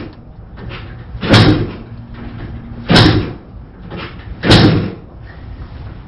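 Yamaha Blaster 200's two-stroke single-cylinder engine being kick-started: three hard kicks about a second and a half apart, each a short loud burst as the engine turns over without firing. The owner traces the no-start to ignition coils whose resistance reads well below spec.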